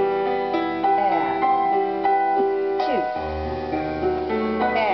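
Piano music playing, a slow run of held notes and chords.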